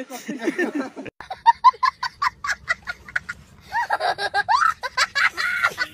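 A young boy laughing hard, a run of high-pitched laughs in quick succession, cutting in suddenly about a second in after a moment of voices.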